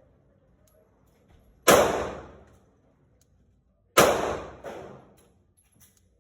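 Two single pistol shots from a 9mm Glock 19X, about two and a half seconds apart, each followed by a ringing echo that fades over about a second.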